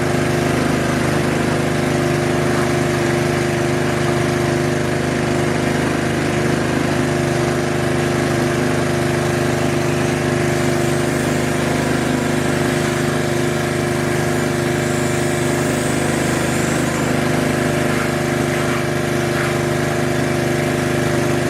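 Small gasoline engine of a 2.5-inch Proline gold dredge with a hookah attachment, running steadily at one constant speed.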